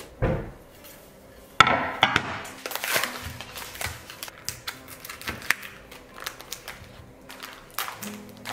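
Scattered knocks and clacks of objects being handled, one sharp knock about a second and a half in, over faint background music.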